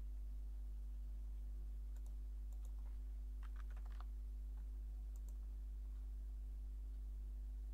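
Computer keyboard keystrokes and mouse clicks, with a quick run of typed keys about three and a half seconds in and a few single clicks around it, over a steady low electrical hum.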